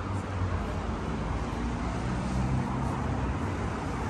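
Street traffic: steady road noise with a motor vehicle's engine running close by. It starts abruptly.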